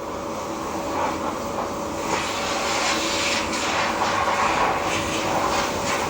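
Factory machinery running: a steady mechanical hum and hiss with a faint held tone and scattered light clatter.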